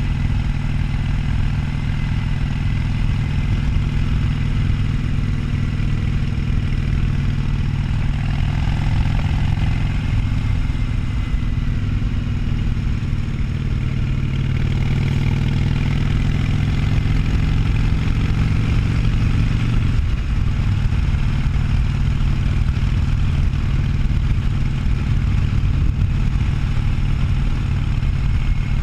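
Harley-Davidson Sportster 1200's V-twin engine running under way. Its pitch climbs slowly for several seconds midway, then drops suddenly about twenty seconds in and runs steady again.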